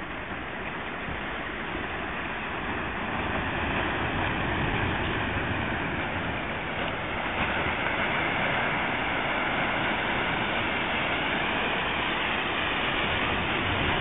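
Steady rushing of sea surf breaking and washing on a rocky shore, growing a little louder over the first few seconds.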